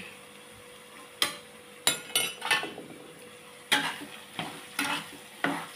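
A metal spoon stirs and scrapes against a wok as gulai spice paste with leek fries in it. The strokes come irregularly, starting about a second in.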